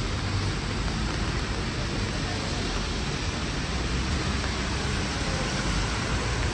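Steady hiss of rain falling on a city street, mixed with passing traffic and a low rumble underneath.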